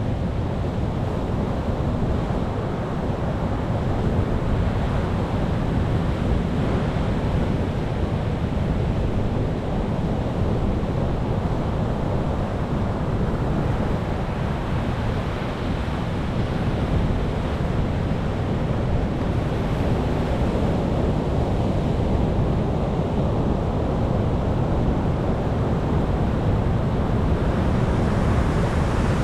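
Ocean surf breaking on rocks: a continuous rush of waves with a deep low rumble and no pauses between breakers.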